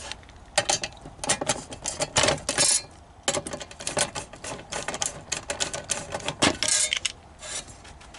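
Screwdriver working a Phillips screw out of a metal tape-reel flange: rapid, irregular clicks and short scrapes of metal on metal, with a louder knock near the end.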